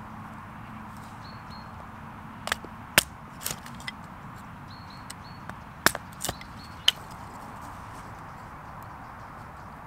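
Small axe splitting kindling blocks propped on a stick: a few sharp chops and wood knocks about two and a half seconds in, then another short cluster around six seconds in.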